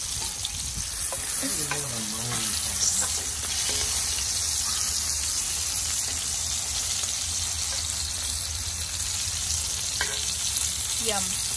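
Seasoned fish fillets frying in hot fat in a cast iron skillet, a steady sizzle, with a few light clicks of a metal spoon and spatula turning them.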